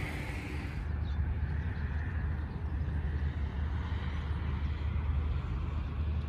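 Outdoor background: a steady low rumble with a faint hiss and no distinct events.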